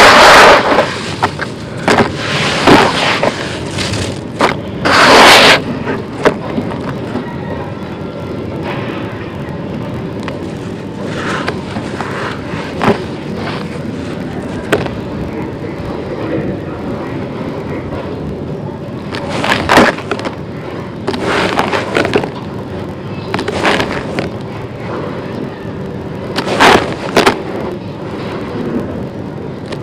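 Hands crushing and scraping through a pile of dry crumbled concrete grit, crunching and grinding in irregular bursts. The loudest crunches come at the start and a few seconds in, with softer gritty rustling between and more crunches later on.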